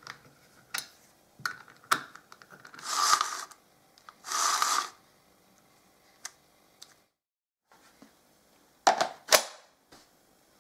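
Short metallic clicks and rattles of hand work on a mini chainsaw's guide bar and chain: a spanner on the bar nuts and the chain being pulled along the bar while its tension is checked. Two sharp clicks come near the end.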